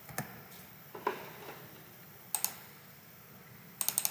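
Sparse computer keyboard and mouse clicks: a single click near the start and another about a second in, a quick double click about two and a half seconds in, and a short run of clicks near the end.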